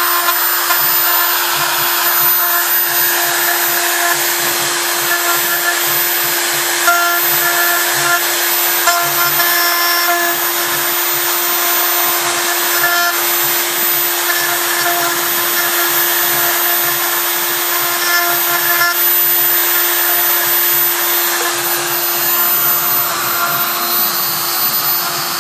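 Handheld router mounted as a CNC spindle, running steadily with a constant whine while its bit carves a logo into a wooden board, with higher tones that come and go.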